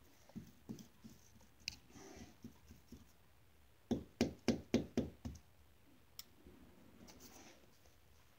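Footfalls on hard ground: a quick run of about six sharp knocks, roughly four a second, just before the middle, with scattered fainter knocks and scuffs around it.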